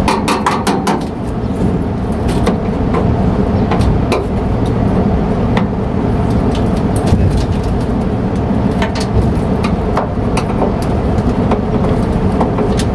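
Split air-conditioner outdoor units running with a steady, loud rumble. Scattered sharp clicks and knocks sound over it.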